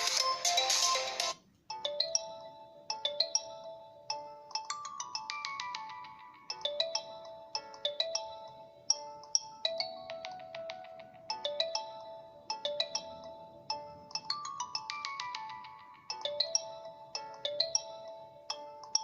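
Ringtones of an LG K40S phone. A loud, dense tone cuts off about a second and a half in, and after a brief gap a new ringtone starts: a bright melody of short notes that each fade quickly, played in phrases that repeat over and over.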